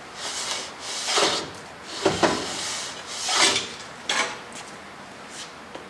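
Cast-iron saddle of a South Bend 9-inch lathe scraping along the bed ways as it is slid off by hand. It comes in about five separate pushes, with a sharp knock about two seconds in.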